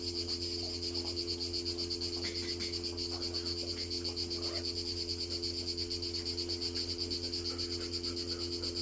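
Steady, high-pitched insect chirring that pulses rapidly, over a low steady hum.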